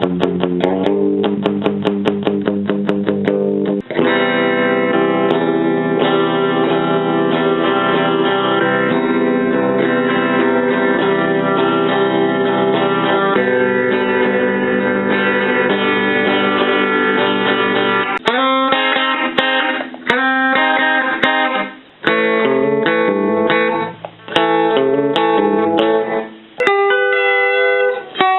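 Electric guitar played through a Roland Jazz Chorus amplifier. It opens with quick picked notes for the first few seconds, then long ringing chords, and from about two-thirds of the way through, short choppy chords with brief gaps between them.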